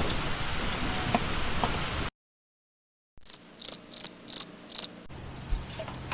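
Steady rain-and-wind noise that cuts off abruptly about two seconds in. After a second of silence, a cricket chirps five times, evenly spaced at about two chirps a second, and then a faint low hum remains.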